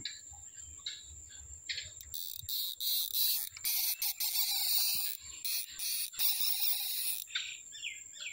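Outdoor insect chorus: a steady high-pitched trill with short bird chirps. From about two seconds in to about seven seconds, a louder high hiss comes and goes in bursts over it.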